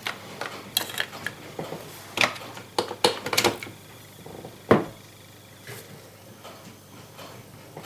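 Handful of separate sharp clicks and knocks from objects handled on a workbench, the loudest one a little over halfway through, then only faint small clicks.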